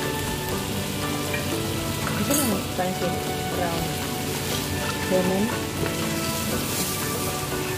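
Rice, lentils and vermicelli sizzling in an aluminium pot as a wooden spoon stirs and scrapes through the grains.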